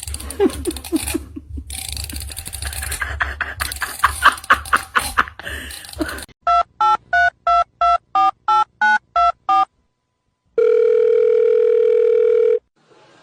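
Clicking and rustling over a low hum, then a telephone keypad dialling: eleven quick two-note beeps, about three a second. After a short pause comes a steady tone lasting about two seconds.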